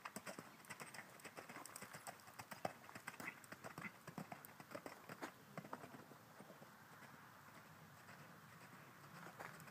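Faint hoofbeats of a Thoroughbred mare cantering on arena sand footing. The hoofbeats grow fainter and sparser after about six seconds as she moves away.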